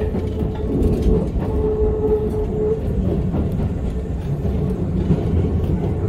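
Keisei Kanamachi Line train running on the rails, heard from inside the front car: a steady low rumble with faint wheel clicks. A single steady tone is held for about a second, starting about a second and a half in.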